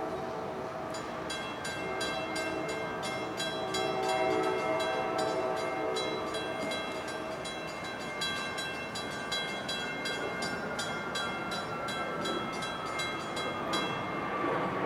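A train horn sounds a steady chord that fades out about halfway through. Over it, a grade-crossing warning bell rings at a steady pace of about three strikes a second, starting about a second in and stopping just before the end. In the second half a faint tone slides slowly down in pitch.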